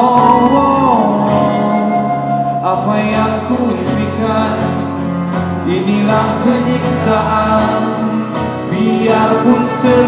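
Live band music: a flute melody over acoustic guitar and drums, heard from the audience.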